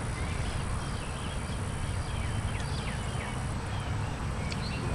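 Outdoor ambience: a steady low rumble, with short, high, bird-like chirps that glide up or down scattered throughout.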